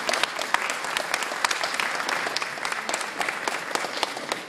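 Audience applauding, many hands clapping steadily and easing off slightly toward the end.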